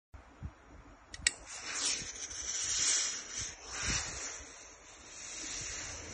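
Silver Star ES-94A industrial steam iron hissing as it releases steam while pressed on denim, swelling twice and then settling to a steadier hiss, with a sharp click about a second in.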